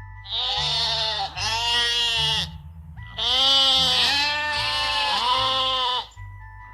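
Bleating livestock: four loud, quavering bleats in two pairs, each call about a second long, with a short gap between the pairs.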